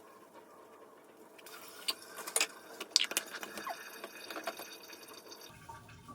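Light water splashing and dripping with small clicks and knocks as a guinea pig is washed in warm water, starting about a second and a half in. A low steady hum comes in near the end.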